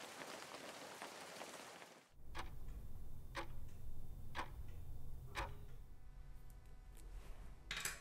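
Rain falling on leaves for about two seconds, then an alarm clock ticking once a second, and a brief rush of water from a sink tap near the end.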